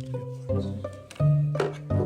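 Background music: plucked pizzicato string notes with a bass line, a new note about every 0.7 seconds.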